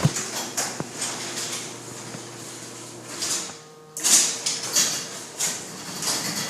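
Garage door moving on its tracks: repeated rattling and scraping over a steady low hum. The sound dips briefly just before four seconds in, then comes back suddenly and loudly.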